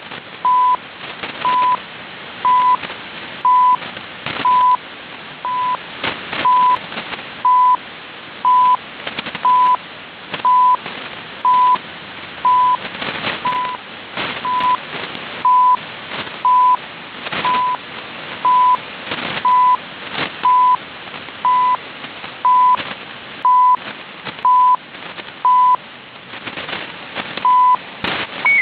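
CHU Canada shortwave time signal received on an SDR: a short 1 kHz beep once every second, one second's beep left out near the end, over shortwave static with frequent crackles.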